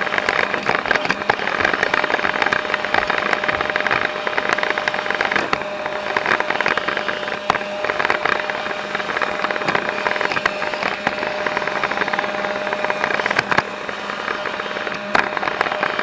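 Roomba robot vacuum running, heard through a camera mounted on it: a steady motor and brush hum with frequent clicks and knocks as it moves across the wood floor.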